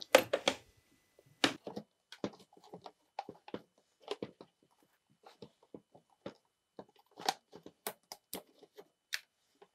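Sheet-film holder being fitted into the back of an old wooden 13x18 field camera: a series of short clicks, knocks and scrapes of wood and metal parts, with a quick cluster of the loudest knocks right at the start.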